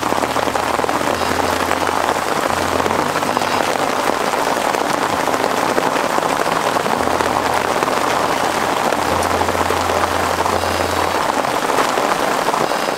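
Steady, heavy rain pattering, with a faint low hum underneath that shifts in pitch now and then. It fades out right at the end.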